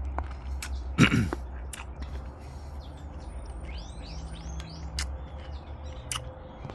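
Birds chirping, with a quick run of high chirps in the middle, over a low steady rumble. A brief, loud, falling-pitched sound comes about a second in, and a few sharp clicks are scattered through.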